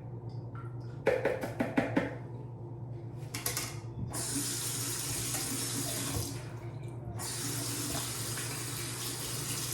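Sink tap running: a few knocks and handling clatter first, then water from the tap rushing from about four seconds in, stopping for about a second and running again.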